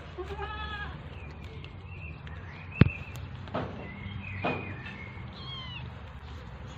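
Kittens mewing: a meow just after the start, then several thin, high-pitched mews. A sharp knock about three seconds in is the loudest sound, with a couple of softer knocks after it.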